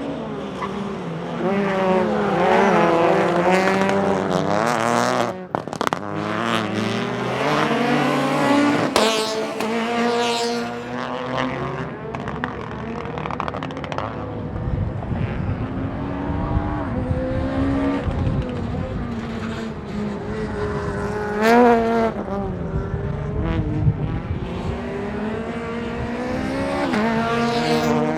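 Peugeot 208 Rally4's 1.2-litre turbocharged three-cylinder engine revving hard, its note climbing and dropping again and again through the gears, with a few sharp pops and crackles. Around the middle the engine note sinks under a steady rushing noise for several seconds.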